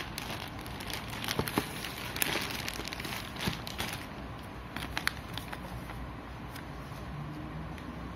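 A plastic courier mailer bag crinkling and crackling as hands handle it, busiest over the first four seconds. After that the rustling is softer, with a few sharp ticks.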